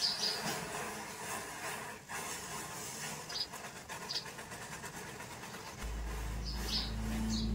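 Matchsticks standing in a row catching fire one after another: a steady crackling hiss of burning matches, with several short flaring hisses as fresh match heads ignite.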